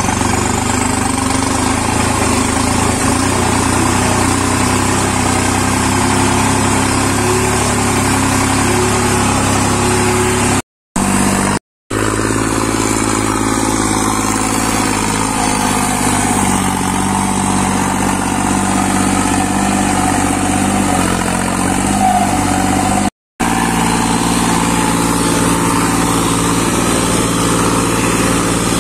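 New Holland diesel tractor engines running steadily under load, one of them hauling a loaded trolley, across several clips joined by brief cuts. In the middle clip the engine note sags and then picks up again.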